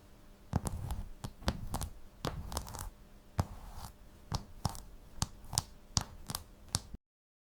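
Irregular series of sharp, crisp crunches and clicks, about three a second, starting about half a second in and cutting off abruptly near the end.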